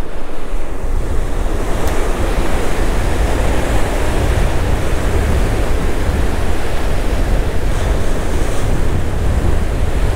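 Rough surf breaking and washing up the beach, with strong wind buffeting the microphone in a steady low rumble.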